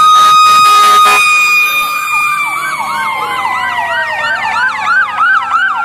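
Emergency vehicle sirens from a fire engine procession. A loud steady siren tone holds for about the first second, then winds down slowly in pitch, while a second siren runs a fast yelp of about three rising sweeps a second.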